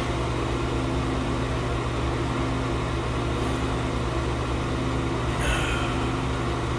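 Steady low hum of a ventilation fan, even and unchanging in level.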